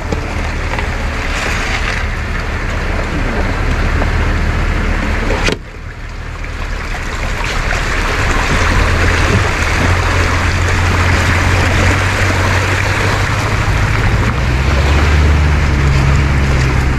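Pickup truck's engine running at low speed while crossing a creek, with a steady rush of water around the wheels. The engine note rises and gets louder near the end as the truck pulls up out of the crossing.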